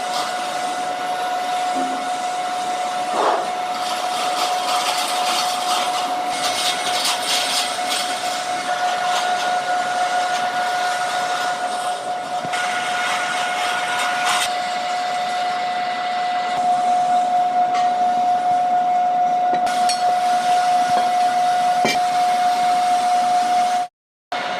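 Metalworking machine tool running steadily, a constant whine over a hissing noise. The sound drops out briefly near the end.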